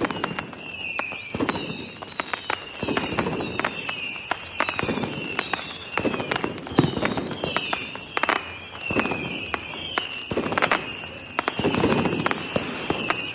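Fireworks going off continuously: a dense run of sharp bangs and crackles with rumbling booms every second or two. Over them runs a string of short whistles, each falling in pitch.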